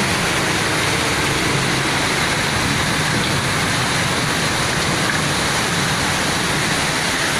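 Heavy rain pouring down: a dense, steady hiss.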